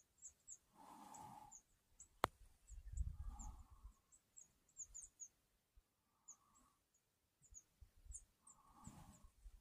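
Faint outdoor quiet with small birds chirping, many short high chirps scattered throughout. A short mid-pitched call comes four times, a few seconds apart, with one sharp click about two seconds in and a brief low rumble just after.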